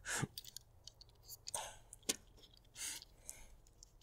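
Faint scattered clicks and a few short rustles from small parts being handled.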